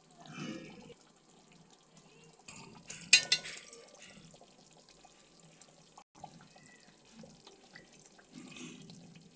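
Faint hiss of gravy simmering in a pot on a low gas flame, with scattered small kitchen-handling noises and a sharp metallic clink about three seconds in, typical of a steel spoon striking a utensil.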